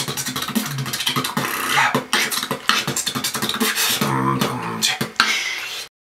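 A man beatboxing: rapid mouth-made drum clicks and hits with a few low hummed notes, stopping abruptly near the end.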